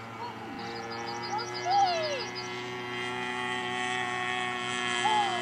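Steady drone of a radio-controlled Ipanema model aeroplane's motor in flight, with birds calling over it: a quick run of high chirps from about half a second to two and a half seconds in, and a few lower sliding calls.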